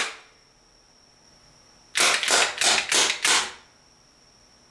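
Wooden five-shot rubber band repeater pistol with a pull-pin release fired in one quick volley: five sharp snaps about three a second as the bands are let go one after another.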